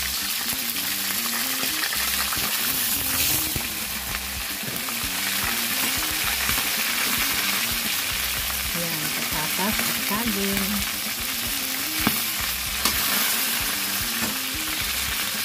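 Chicken pieces and potato chunks deep-frying in hot oil in a wok: a steady, loud sizzle, with two sharp clicks about three-quarters of the way through.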